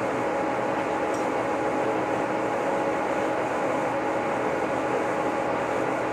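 Lucas model 41 horizontal boring mill running steadily while its boring bar cuts a pin bore in a steel excavator quick-attach, a constant machine hum with several steady tones.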